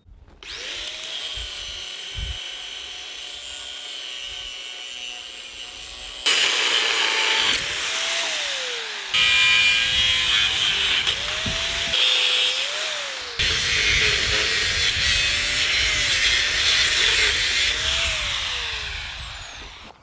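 Angle grinder spinning up and cutting into rusty steel. Its motor pitch sags repeatedly under load and climbs back. The sound jumps abruptly three times where separate stretches of grinding are joined.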